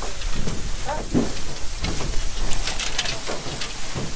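Steady rushing noise with irregular rustles and knocks as mesh sacks of onions are lifted, carried and loaded onto a truck.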